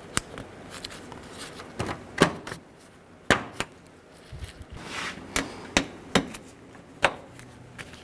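Plastic push-pin fasteners being pressed into a plastic radiator-support cover by hand: a string of about nine sharp clicks at uneven intervals as each pin snaps home.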